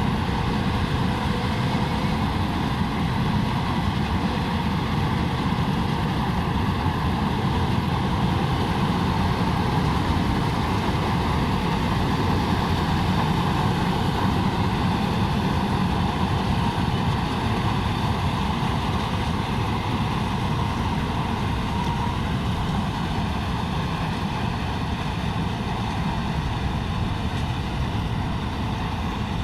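Malkit 997 combine harvester running steadily while cutting paddy: a continuous heavy engine drone mixed with the noise of the harvesting machinery.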